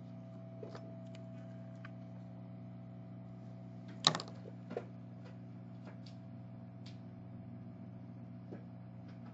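Light clicks and taps of a small hand tool working the pins of a phone charging port on a circuit board, the sharpest about four seconds in, over a steady electrical hum from the workbench equipment.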